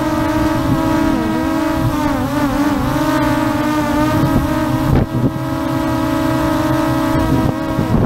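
ZLL SG906 MAX 2 quadcopter's motors and propellers whining close to the microphone, their pitch wavering up and down twice as the motors change speed to hold the drone steady. Wind rumbles on the microphone underneath.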